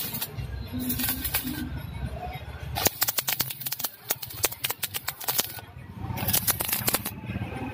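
Stick arc welding on an iron gate: the arc crackles and sputters in bursts. The crackle is fastest and densest from about three seconds in to about five and a half seconds, with shorter bursts before and after.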